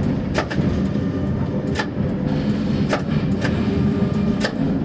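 A tram running on street track, heard from on board as a steady low rumble. Five sharp knocks come at uneven intervals as its wheels pass over rail joints and crossing track.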